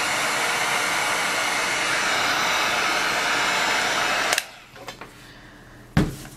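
Electric heat gun blowing a steady rush of hot air, switched off with a click a little over four seconds in. About two seconds later comes a single thump as it is set down.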